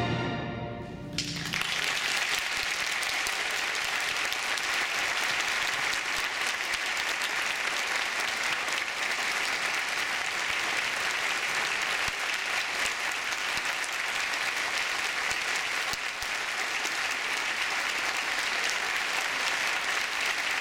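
The orchestra's final chord dies away in the hall, and about a second in, the audience starts applauding, steady and sustained.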